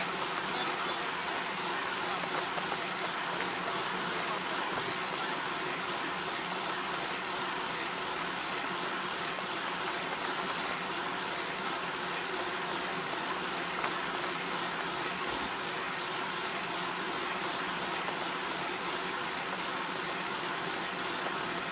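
Steady road and wind noise of a moving vehicle, with a faint even engine hum underneath.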